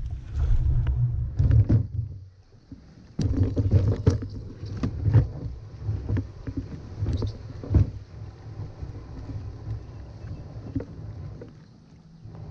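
Plastic fishing kayak dragged across grass, its hull rumbling and scraping with frequent knocks as it bumps over the ground, picked up through the hull by a camera mounted on the kayak. The dragging pauses briefly about two seconds in and is quieter near the end.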